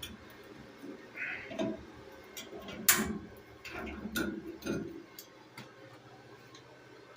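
A few scattered light clicks and knocks from metal being handled, the sharpest about three seconds in.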